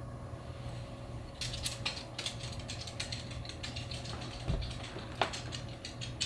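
Crisp crackling and clicking of a baked, flaky biscuit crust being handled and broken, with a dull thump about four and a half seconds in and a sharper knock just after.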